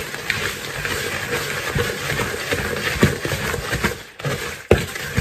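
Wooden spoon stirring crushed digestive biscuits and raisins into a thick melted chocolate mixture in a mixing bowl: a steady scraping with irregular knocks of the spoon against the bowl, the sharpest a little before the end.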